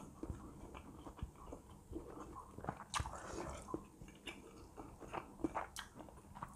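A person chewing a soft mouthful of siomay, a steamed shrimp-and-chicken fish-paste dumpling with peanut sauce. It comes through as faint, scattered small mouth clicks and smacks, close to a clip-on microphone.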